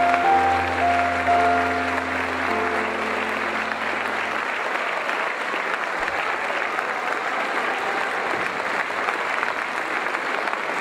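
Audience applauding steadily, with the last held notes of the keyboard accompaniment dying away about four seconds in.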